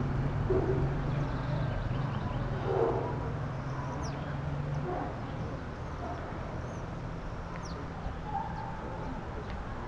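Outdoor ambience with scattered short, high, falling bird chirps. A steady low engine hum runs underneath and dies away about halfway through.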